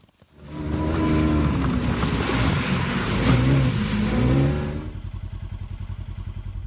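Small utility vehicle's engine running hard as it is driven, its pitch rising and falling, then about five seconds in settling to a steadier, quieter run with an even pulse.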